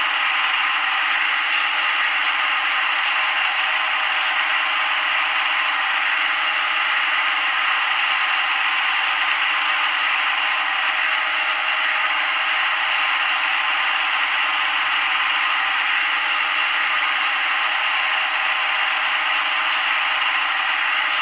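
Simulated lathe cutting sound from a CNC lathe simulator app, a steady, unchanging scraping noise while the tool runs a grooving cycle on the turned part.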